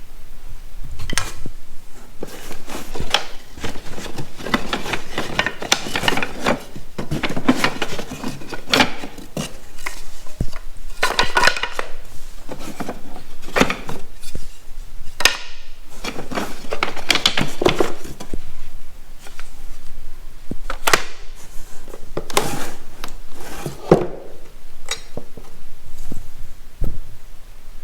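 Irregular knocking and clattering of wooden beehive boxes, frames and lids being handled and set against one another.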